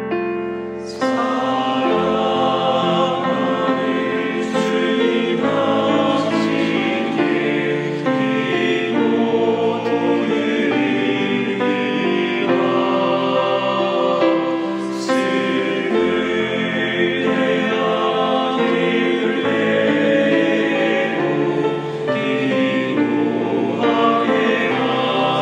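A men's choir singing a Korean Catholic prayer song in harmony over piano, with the words "Beloved Lord, I pray to you" and "let me pray". The voices come in about a second in, after a piano chord.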